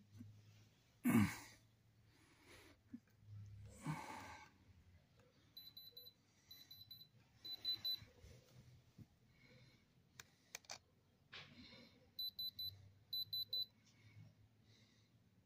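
Diamond Selector II gem tester beeping in short bursts of rapid high-pitched beeps, several bursts in two groups, as its probe is pressed against a rock. Two loud rustles of handling come early on, and there are a couple of sharp clicks between the beep groups.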